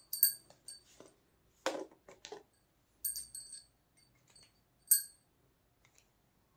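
A small metal object clinking with a clear, bell-like ring, struck about five times at uneven intervals. There is one duller knock about a second and a half in.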